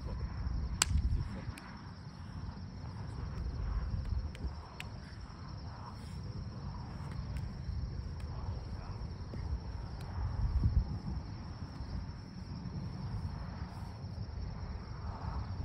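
Volleyball being passed on a sand court: about six sharp slaps of hands and forearms on the ball, spread out, the one about a second in the loudest. Under them, gusty wind rumble on the microphone and a steady high-pitched drone.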